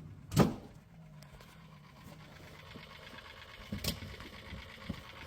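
A sharp knock about half a second in and a lighter knock near four seconds, from parts being handled while a refrigerator ice maker is taken out, over a faint low hum.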